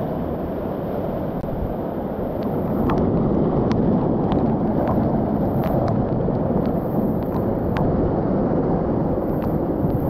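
Bâlea waterfall, a 60 m stepped mountain waterfall, rushing steadily down rock close by, a little louder from about three seconds in. Scattered sharp ticks of spray drops hit the camera.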